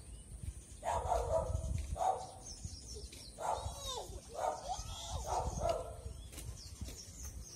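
A dog barking repeatedly, about six barks at uneven intervals.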